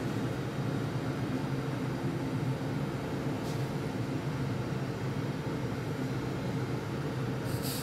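Steady roar of a glassblowing hot shop's furnace, burners and exhaust fans running, with a low hum under it and a brief high tick near the end.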